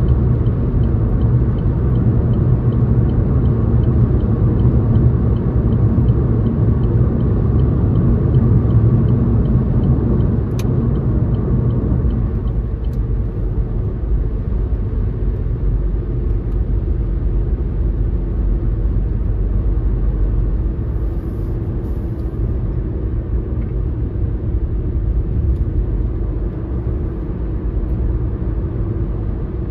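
Road and engine noise inside a car cruising on a highway: a steady low rumble, slightly quieter after about twelve seconds. A faint, evenly spaced ticking runs underneath for the first twelve seconds or so.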